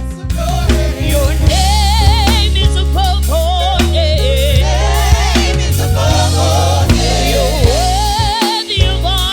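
Recorded gospel music with vocal singing over a heavy bass line and drum kit.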